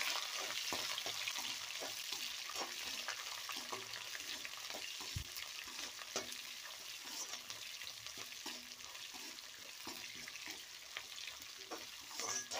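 Chopped onion and dried red chillies sizzling in hot oil in a kadai as they are sautéed, with a steel spatula scraping and tapping against the pan again and again as it stirs.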